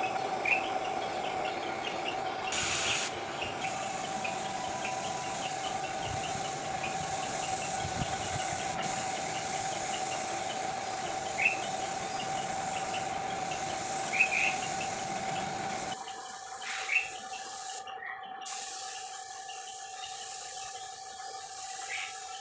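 Paint spray gun hissing steadily as it sprays clear gloss finish, with a few short bird chirps.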